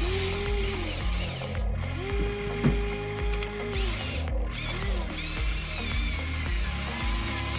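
Electric motors and gearboxes of a Huina 593 1/14-scale RC excavator whining in short runs as the arm and bucket work. Each run rises, holds and dies away, with one longer steady run in the middle and a sharp click partway through. Background music plays underneath.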